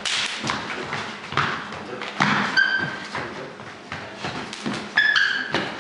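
Quick irregular slaps and thuds of hands and forearms striking and blocking in Wing Chun freehand sparring, mixed with footsteps on a wooden floor. Two short high squeaks come about two and a half and five seconds in.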